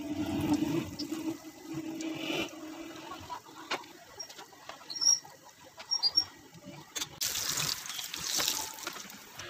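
Breaded chicken drumsticks deep-frying in a pan of oil, sizzling and bubbling with scattered pops. The sizzle swells louder about seven seconds in as the fried drumsticks are lifted out with a wire skimmer.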